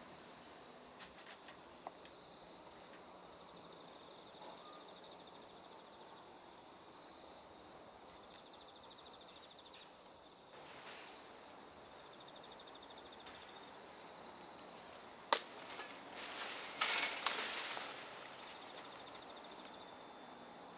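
Insects chirping steadily, with a fine pulsing high trill over a constant high tone. About fifteen seconds in comes a sharp snap, then a couple of seconds of loud crackling and rustling of branches and leaves while a tree is being pruned.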